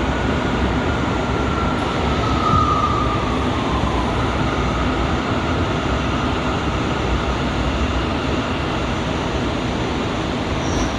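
Bombardier R179 subway car running between stations, a steady rumble of wheels on rail and car noise. A thin high whine sits above it and slides slightly down in pitch over the first few seconds, then fades into the rumble.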